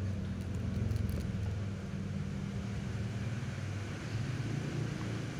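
Steady low mechanical hum from running machinery.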